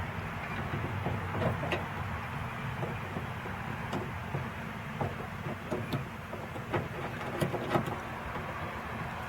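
Scattered light clicks and taps of a bolt and door-handle parts being handled and started by hand inside a car door, with a few sharper clicks near the end, over a steady background rumble.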